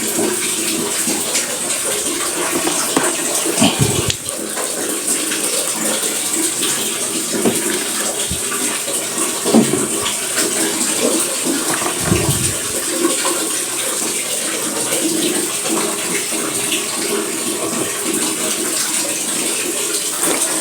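Steady running, splashing water at a twin-tub washing machine as wet, rinsed clothes are handled, with a couple of low thuds about 4 and 12 seconds in.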